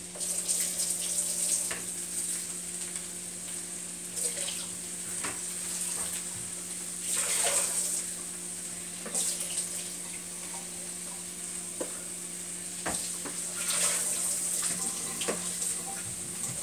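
Kitchen tap running while a bowl is rinsed under it, the water splashing in uneven surges, over a steady low hum.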